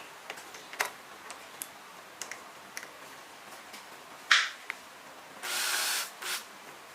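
Scattered small clicks and taps of tools and scooter parts being handled during reassembly of the handlebar fittings, with one sharp click about four seconds in. Near the end comes a short rasping noise of about half a second, then a briefer one.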